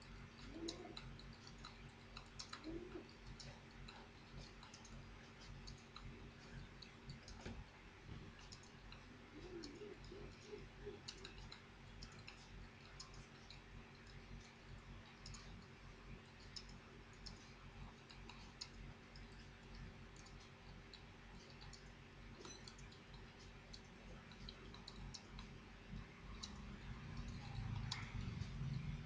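Computer keyboard keys being typed quickly, a faint stream of irregular clicks several a second. A rush of noise builds near the end.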